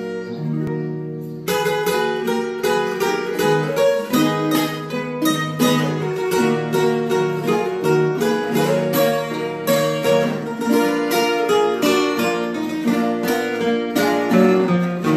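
Three acoustic guitars playing a moda de viola together, with no singing. A held chord rings first; from about a second and a half in, a plucked melody runs over strummed chords.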